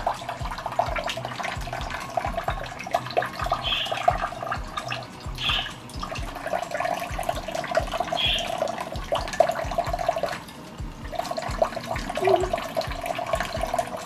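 A thin stream of water from a kitchen faucet running steadily into a stainless steel sink, dipping briefly about ten and a half seconds in.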